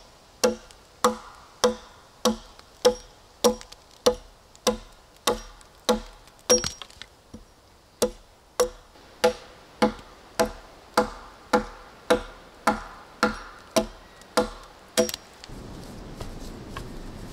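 Axe chopping into a log: a steady run of about twenty-five sharp woody knocks, roughly one every 0.6 seconds. They stop about fifteen seconds in, leaving a faint steady hush.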